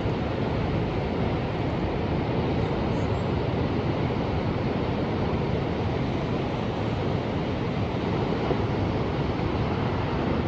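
Ocean surf: a steady, even rush of waves with a deep low end, with no single wave breaking out above the rest.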